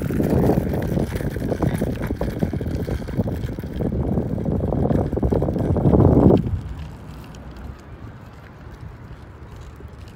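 Small plastic wheels of a child's kick scooter rolling over rough asphalt, a gritty rumble that stops abruptly about six seconds in.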